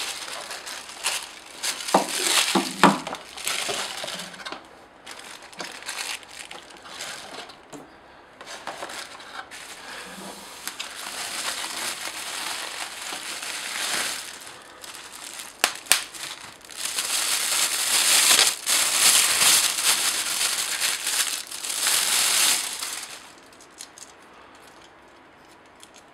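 Plastic bubble wrap crinkling and rustling as a camera body is unwrapped by hand, with a few sharp knocks and clicks in the first few seconds. The rustling is loudest for several seconds past the middle and dies down near the end.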